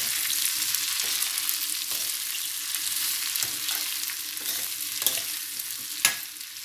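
Oil sizzling in a stainless steel pan while sliced zucchini and potato are stirred with a metal spatula, the spatula scraping and knocking against the pan; one sharper knock about six seconds in.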